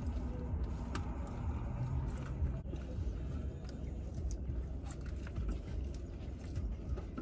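Chewing and faint clicks of plastic forks in salad containers inside a parked car, over a low steady rumble from the car.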